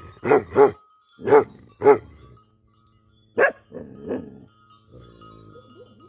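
A Tibetan mastiff-type livestock guardian dog barking: four loud barks in the first two seconds, another sharp bark about three and a half seconds in, then softer, lower calls.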